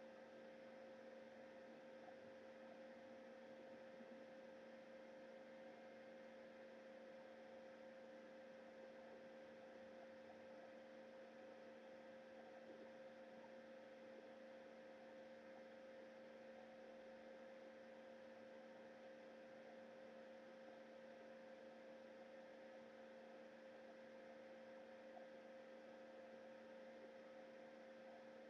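Near silence: a faint, steady electrical hum with a few fixed tones, the strongest a mid-pitched one, over light hiss.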